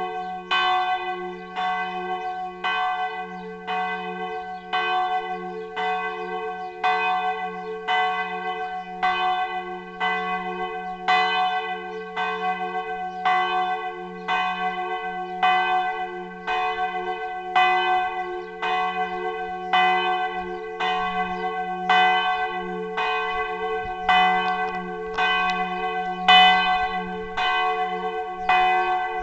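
The campanone, the largest church bell, swinging full circle in a 'distesa' peal, its clapper striking about three times every two seconds. Each strike rings on, over a steady low hum that sounds beneath the strokes.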